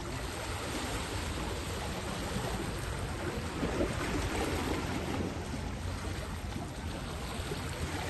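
Sea water washing and sloshing among shoreline boulders, a steady rushing hiss, with a low rumble underneath.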